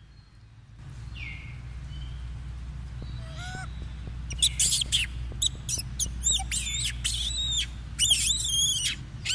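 Macaques' high-pitched squealing calls: a run of short cries that rise and fall in pitch, starting about three seconds in and coming thick from about four seconds on, over a steady low rumble.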